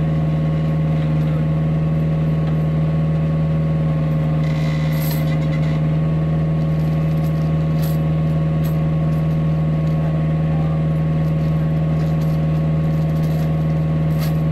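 Hitachi mini excavator's diesel engine idling with a steady low drone, with no revving. A few faint metallic clinks from the lifting chains being hooked to a concrete slab.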